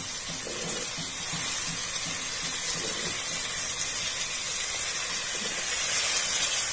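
Hot oil sizzling in the pot as fresh green peas are tipped in, a steady hiss that grows a little louder near the end.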